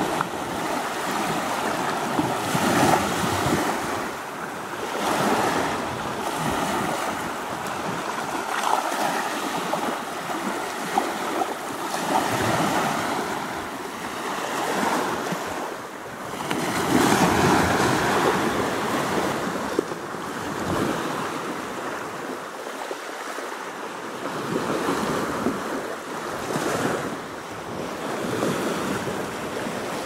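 Small sea waves breaking and washing up onto a sandy beach, the surf swelling and easing every few seconds.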